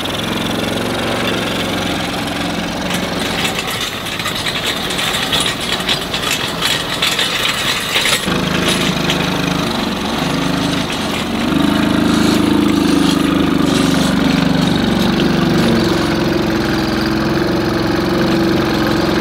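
Small engine of a kids' garden-size tractor running steadily under load as it pulls a homemade plow through dirt, with scattered clicks and rattles in the first half. The engine note shifts about eight seconds in and grows louder toward the end.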